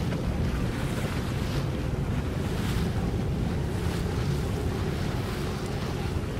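Wind rumbling steadily on the microphone over open water, with the wash of waves.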